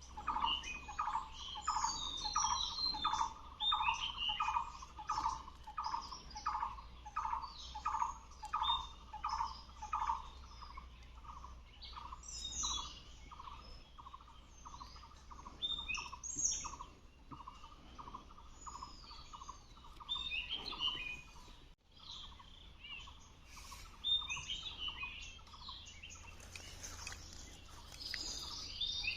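Wild birds calling: a repeated note about twice a second, strongest in the first ten seconds and fainter afterwards, with many short high chirps and twitters from other birds over it.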